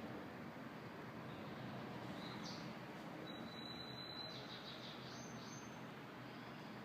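Faint, steady background ambience with a few brief high-pitched chirps in the middle.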